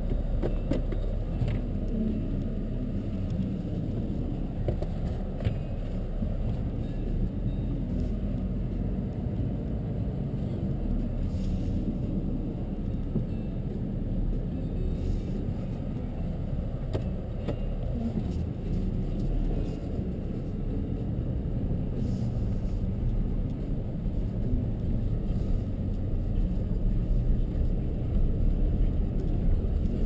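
Cabin noise of a 2012 Jeep Wrangler Sahara on the move: a steady low rumble of its 3.6-litre Pentastar V6 and tyre and road noise, with a few light knocks now and then.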